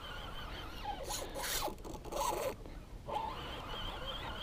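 Spinning reel being cranked to retrieve line, a zipper-like whirring in two short spells, about a second in and again near the middle.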